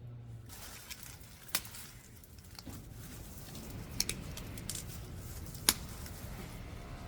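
Hands at garden work: a steady rustle with a handful of sharp clicks and snips, the loudest near the end.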